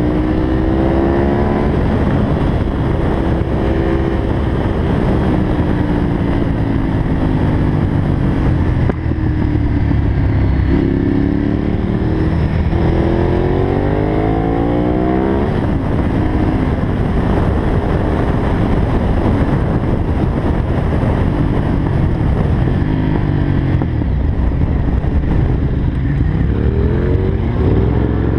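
Kawasaki Z750's inline-four motorcycle engine under way, rising in pitch as it accelerates and dropping back at gear changes several times, over a steady rush of wind on the microphone.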